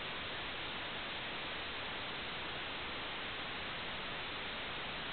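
Steady, even hiss of static, the kind an analog FPV video receiver puts on its recording; no motor or water sound stands out.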